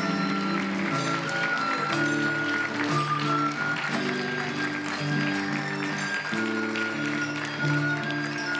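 Live ensemble music: acoustic guitar with mallet percussion such as xylophones, playing a steady melody of short held notes.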